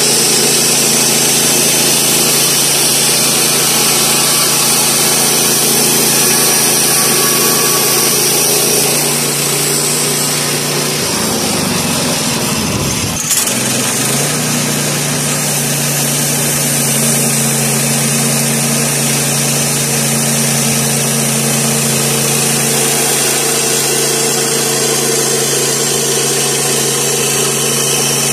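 7 hp gas engine of a Woodland Mills HM122 bandsaw mill running steadily while the band blade saws through sycamore. About halfway the engine note dips and wavers for a few seconds, with a brief click, then settles back to a steady run.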